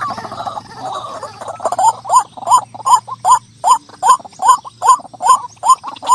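White-breasted waterhen (ruak-ruak) calling. It opens with harsh, gurgling chatter, and from about two seconds in it settles into a fast, even run of short rising-and-falling "kru-ak" notes, about two and a half a second.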